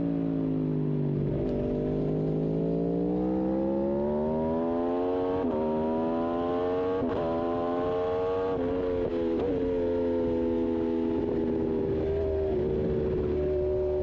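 Aprilia RSV4 V4 superbike engine at racing speed: its note falls briefly, then climbs steadily for several seconds under acceleration with short breaks at gear changes, and settles to a steady pitch near the end.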